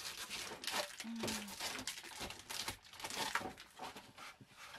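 Plastic packaging crinkling and rustling in irregular bursts as packed items are handled inside a printer box, with a brief low vocal hum about a second in.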